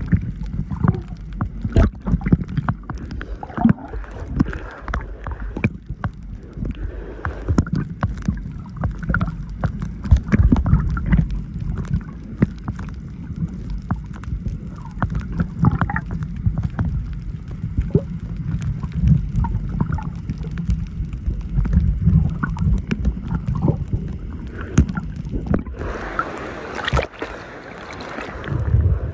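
Water heard through an underwater camera: a muffled low rumble with many scattered clicks and crackles. About 26 seconds in, the camera breaks the surface and a brief wash of splashing water comes through more brightly.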